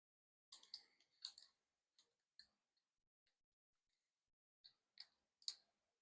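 A few faint, scattered clicks and light taps: tools and parts being handled while adjusting the handlebars of an e-bike. The clicks come in small clusters, about a second in and again near the end, with stillness between.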